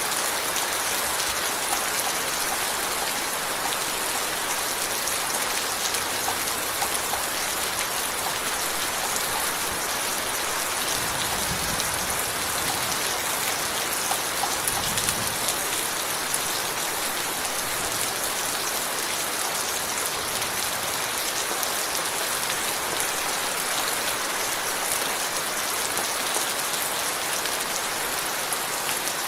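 Steady rain falling, a dense even hiss of many drops hitting a surface, with a faint low rumble swelling briefly twice in the middle.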